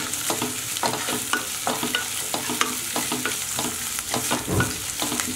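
Wooden spatula stirring and scraping in a kadai while sliced onions, chillies, curry leaves and bay leaves fry in hot oil: quick, irregular scrapes and taps over a steady sizzle.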